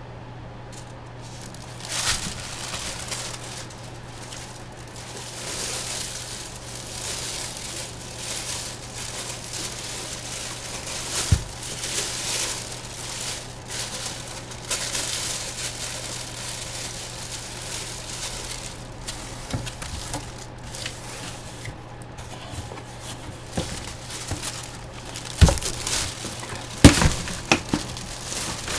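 Packaging being handled, crinkling and rustling unevenly, with a few sharp knocks near the end.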